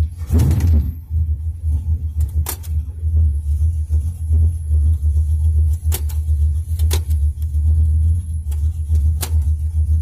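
A 340 small-block V8 idling with a steady low rumble, while the buttons of the push-button 727 TorqueFlite automatic shifter are pressed, giving five sharp clicks spread a few seconds apart.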